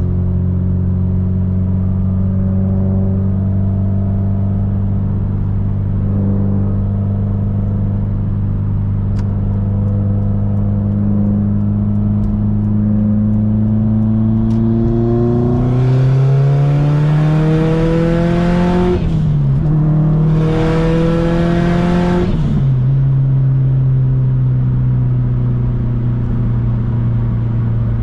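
Subaru STI's turbocharged flat-four engine cruising steadily, then pulling hard about halfway through. Its note rises through one gear, drops at a quick upshift, rises again in the next gear and settles back to a steady cruise. A loud rushing hiss sits on top of the engine while it is under load.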